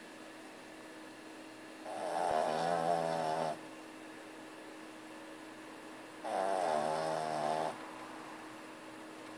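Boston Terrier snoring: two long rattling snores of about a second and a half each, one about two seconds in and the next about four seconds later.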